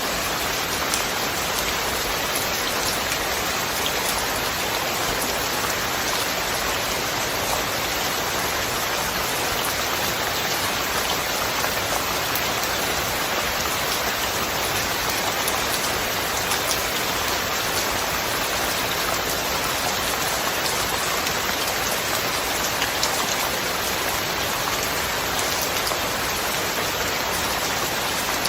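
Steady rain falling, an even hiss with scattered small drop patters.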